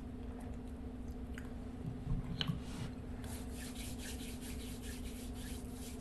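Plastic water bottle being drunk from, with a few gulps and a click about two seconds in, then faint rubbing and scratching as the bottle is handled and put down, over a steady low hum.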